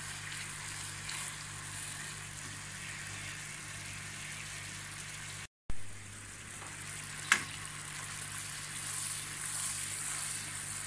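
Sugar syrup with whole green cardamom boiling in a nonstick wok, a steady bubbling hiss: the chashni being cooked down. The sound cuts out briefly about halfway, and there is a single sharp click a couple of seconds later.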